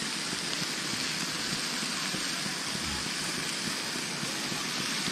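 Steady hissing and sizzling from a camp stove with a pot of shrimp cooking in butter on it.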